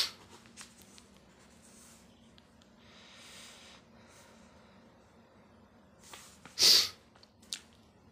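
A person's sharp, loud breath through the nose about six and a half seconds in, with a softer breath around three seconds in.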